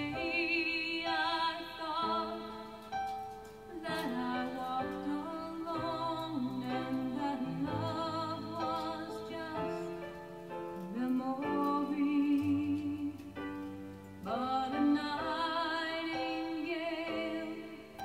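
Music: a woman singing a slow melody with vibrato over long held instrumental notes.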